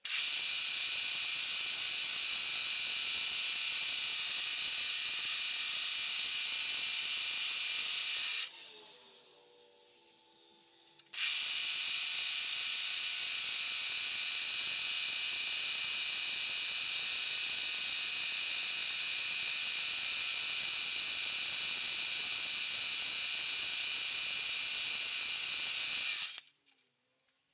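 Milling machine spindle running with an end mill spot-facing the screw bosses of a cast eccentric strap: a steady high whine. It stops for about two seconds roughly a third of the way in, starts again, and cuts off shortly before the end.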